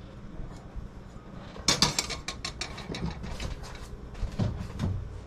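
A spoon scraping and tapping the last of the corn out of a saucepan onto a plate: a quick run of sharp clicks and scrapes, then scattered knocks as the pot is set down on the stove.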